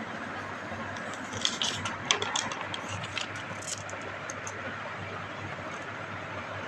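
Steady background hiss with a low hum, and a short run of light clicks and rustles between about one and a half and four seconds in.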